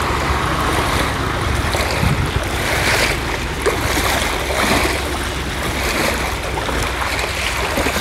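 Floodwater rushing across a submerged road, a steady noisy rush of moving water, with wind buffeting the microphone.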